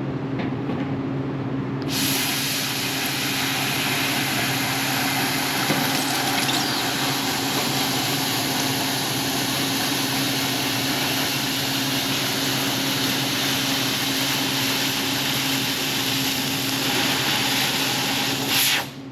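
Handheld laser cutter cutting automotive sheet metal: a loud, steady hiss starts about two seconds in and cuts off abruptly just before the end. A steady low machine hum runs underneath.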